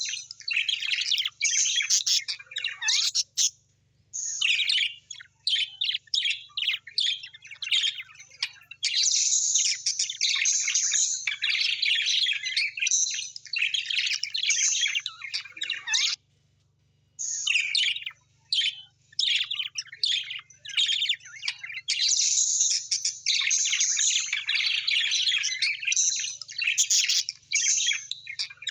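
Birds chirping and twittering in dense, rapid runs of high notes, with brief pauses about four seconds in and again about sixteen seconds in.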